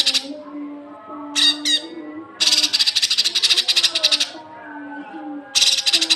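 Recorded song of a cucak kinoi (cucak cungkok): long harsh rattling bursts of rapid notes, each about two seconds, with a pair of quick whistled notes between them. Faint low steady tones that step in pitch run underneath.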